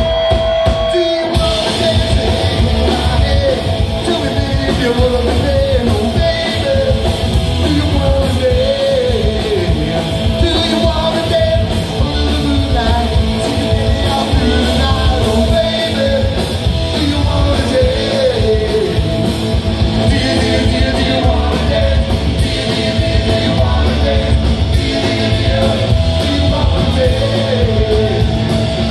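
Live punk rock band playing loud and fast: distorted electric guitars, bass and drums with a man singing. A single held note rings at the start, and the full band comes in about a second in.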